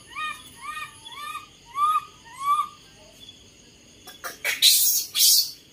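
Newborn monkey giving a run of short, rising-and-falling calls, about two a second, then three loud harsh bursts of noise near the end.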